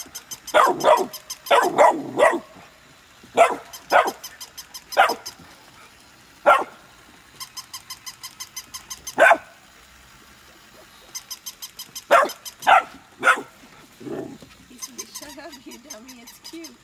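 Short, sharp, high-pitched barks, in ones and twos with pauses between, densest near the start. Twice near the middle there is a run of fast, even clicking, about five clicks a second.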